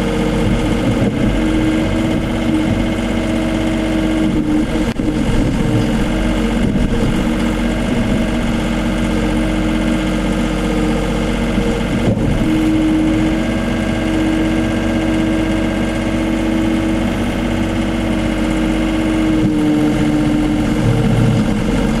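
Case CX39B mini excavator's diesel engine running steadily while its hydraulic arm and bucket dig into the soil, the engine note shifting a little as the load changes.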